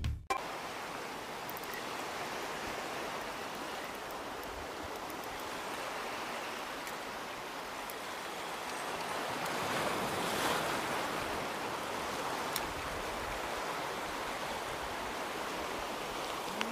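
Steady wash of sea surf on the shore, swelling a little about two-thirds of the way through.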